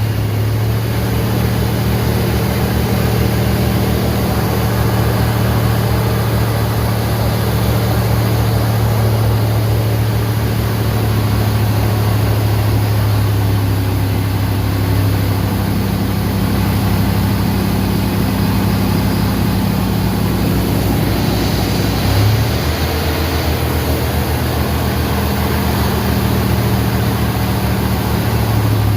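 1988 Ford F-150's 5.0-litre (302) V8 running steadily at idle after starting, through an exhaust with no muffler, only a small resonator. The owner hears a light popping from the valves or valve springs. The pitch briefly shifts about 22 seconds in.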